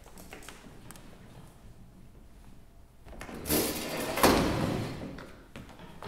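Light footsteps on a wooden stage floor, then a metal-legged stacking chair dragged and set down on the boards, a loud scrape lasting about a second and a half from about three and a half seconds in.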